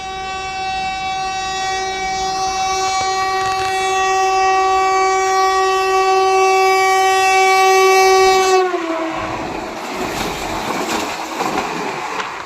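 A train's locomotive horn sounds one long, steady blast that grows louder, then drops in pitch about eight and a half seconds in as the train passes. The clatter and rush of the passing coaches on the rails follows.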